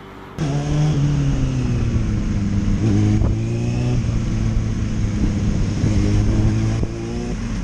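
Motorcycle engine running under way, heard from the rider's helmet camera, its note easing off and picking up again a few times with the throttle. It comes in suddenly about half a second in.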